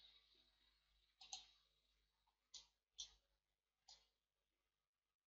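Four faint, short clicks of a computer mouse, spread over a few seconds; otherwise near silence.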